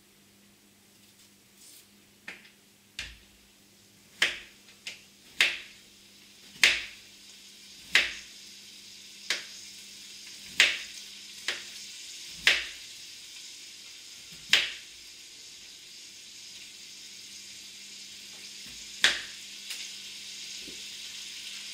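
Diced bacon beginning to fry in a cast-iron pan: a sizzling hiss that grows steadily louder, broken by a dozen or so sharp pops of spitting fat, most of them in the first fifteen seconds.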